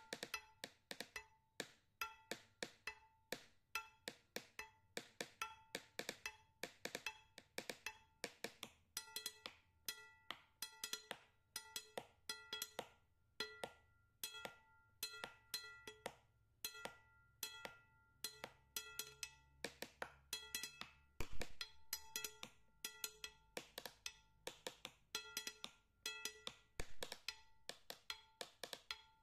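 Quiet background music: a quick, steady tapping beat with short repeating pitched notes.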